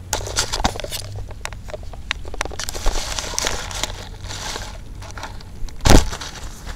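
Close handling noise: hands and a freshly caught ide rustling and clicking against the camera microphone, with crackles throughout and one loud bump near the end.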